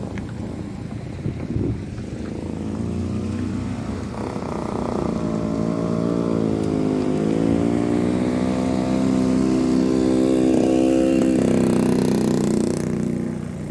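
A vehicle's engine running under load, its pitch sagging and then climbing again as it grows louder, before falling away near the end.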